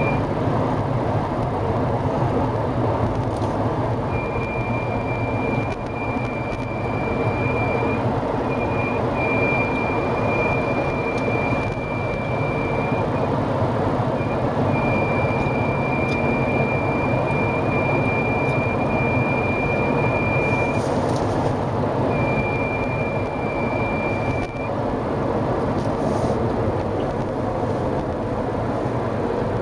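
Steady road and driving noise inside a 2015 Mercedes B-Class, with a high, thin, steady whistle that comes and goes in stretches of several seconds. The workshop traced the whistle to a weakly tensioned spring in the disc brake caliper, which starts whistling from about 70 km/h.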